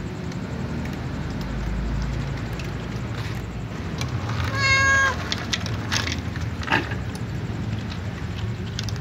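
A cat gives one short, high, level-pitched meow about halfway through, the loudest sound here. A few sharp clicks of dry kibble against the bowls follow, over a low steady background hum.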